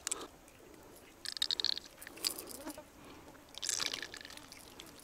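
A small asp being unhooked with pliers: short bursts of scraping and clicking as the pliers work the lure out of the fish's mouth, about a second in, again near two seconds, and near four seconds.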